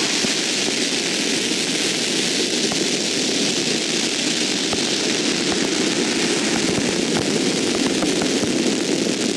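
Fireworks ground effects and flames burning with a steady roaring hiss, a few faint pops over it.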